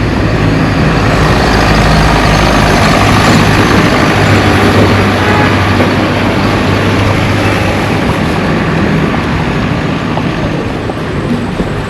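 A large motor vehicle's engine running close by with a low steady drone, loudest in the first half and easing off toward the end, as of a truck passing on the road.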